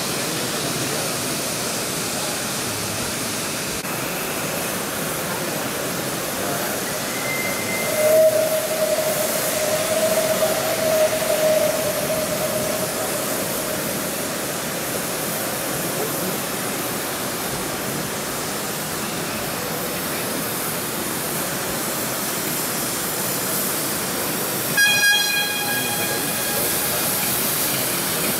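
Live-steam ride-on model steam locomotive hissing steadily as it runs. A whistle sounds twice: a long wavering note about eight seconds in, and a sharper, higher note near the end.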